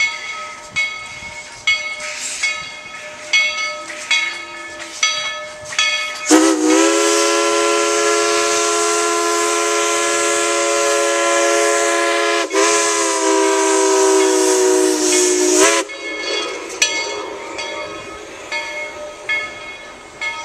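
Steam locomotive's bell ringing steadily, struck about every two-thirds of a second. About six seconds in, the steam whistle blows one long chime blast of roughly nine seconds, briefly broken partway through, its pitch sagging as it starts and stops; the bell carries on after it.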